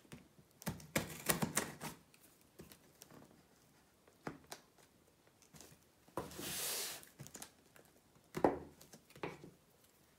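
Hands handling a cardboard shipping box: a scatter of taps and knocks on the cardboard, with a rasping scrape of about a second just past the middle.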